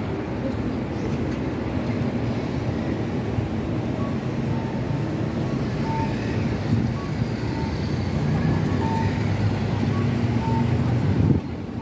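Busy city street ambience: a steady low hum of traffic and crowd, with short electronic beeps recurring irregularly from about four seconds in. The sound drops away abruptly near the end.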